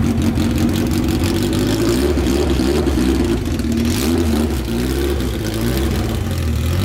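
Engine of a Honda Civic drag car, an all-motor B-series, running at low revs as the car pulls away slowly; the note wavers up and down rather than holding steady.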